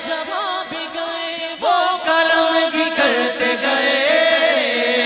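A man singing a naat (Urdu devotional song) into a microphone in long, wavering melismatic notes, with other voices holding a steady drone underneath.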